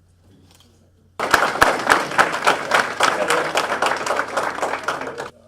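Audience applauding, with many hand claps. It starts suddenly about a second in and cuts off abruptly about four seconds later.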